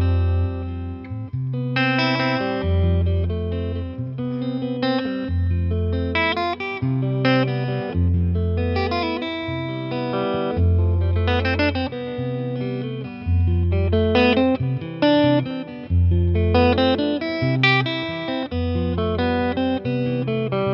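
Eastman T185MX semi-hollow electric guitar played through a Boss Nextone amp: low bass notes changing about once a second under chords and single-note melody lines.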